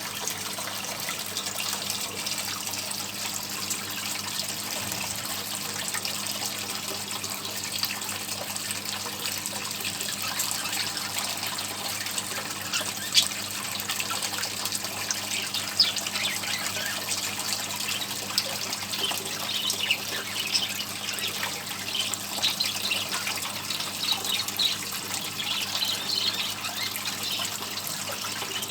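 Water running and splashing steadily from a homemade bird fountain.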